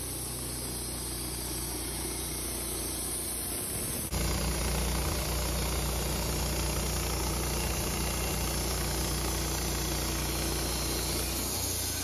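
A Wood-Mizer LT15 bandsaw mill runs steadily while its band blade cuts lengthwise through an incense cedar log. The sound jumps abruptly louder about four seconds in.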